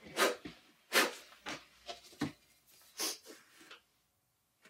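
A man's close-up breathy mouth noises: about ten short, quick puffs at uneven spacing, stopping about four seconds in.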